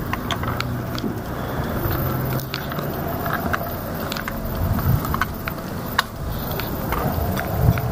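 Outdoor street ambience: a steady low rumble with scattered light taps and clicks.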